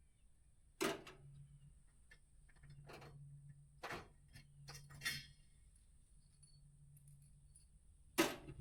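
Five sharp metallic clinks and knocks, spaced a second or more apart, as small metal hardware such as washers and brackets is handled and set down. A faint steady low hum runs underneath.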